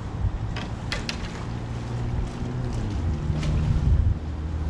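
Low hum of a boat engine running, its pitch shifting a little over the last couple of seconds, with wind buffeting the microphone and a few light clicks about a second in.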